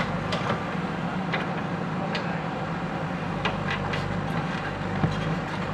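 JCB 3DX backhoe loader's diesel engine running steadily under work, with short sharp clanks and cracks now and then.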